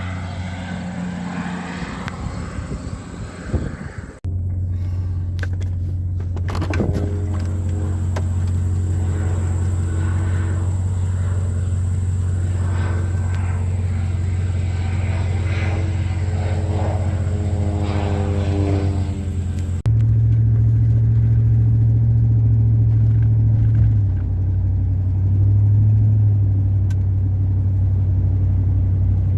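Crop-dusting biplane's propeller engine droning as it passes over, its pitch slowly shifting, over a heavy low rumble. The sound cuts off abruptly twice, and after about two-thirds only a steady low rumble is left.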